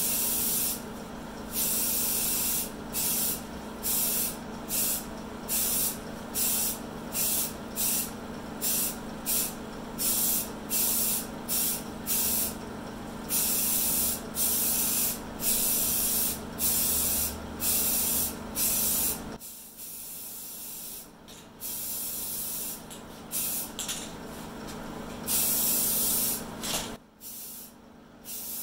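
Primer sealer being sprayed onto a fiberglass tractor body in short on-off bursts of hiss, about one a second, with a few longer passes near the end. A steady hum runs underneath and stops about two-thirds of the way through.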